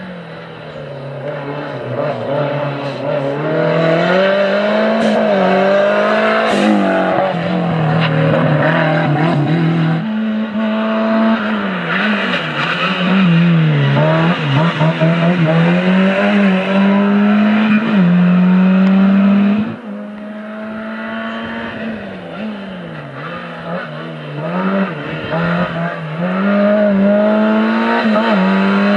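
Small four-cylinder racing hatchback engines, a Fiat Uno and then a Peugeot, revving hard and dropping back over and over as each car weaves through the cones, the pitch rising and falling every second or two. The sound changes abruptly twice as one car's run gives way to the next.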